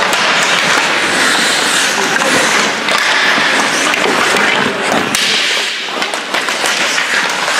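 Ice hockey play: skate blades scraping and carving the ice in a steady hiss, with a few sharp stick-and-puck knocks, the clearest about five seconds in.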